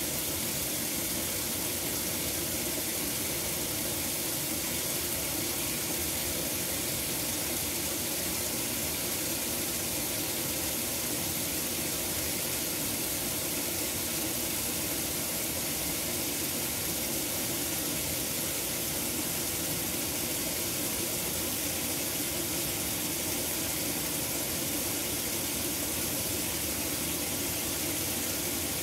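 KitchenAid Superba top-load washing machine filling: a steady rush of water spraying into the tub onto the clothes while the agitator stays still.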